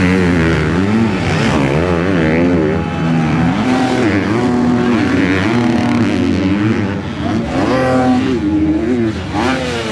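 Motocross bike engines revving up and down through the corners, their pitch rising and falling again and again as the throttle opens and shuts.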